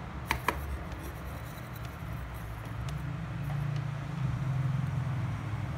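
A low steady mechanical hum, louder in the second half, with two light clicks of small tools being handled on the workbench near the start.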